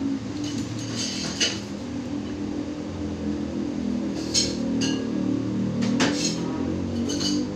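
Sharp metallic clinks and knocks over a steady low hum: several close together about a second in, then single strikes scattered through the rest.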